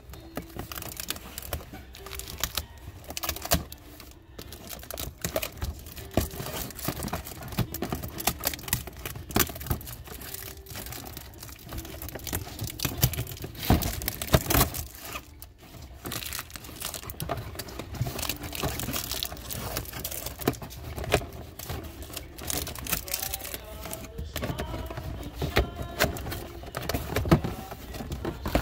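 Plastic packaging crinkling and crackling as it is opened by hand, in dense, irregular crackles that are loudest about halfway through.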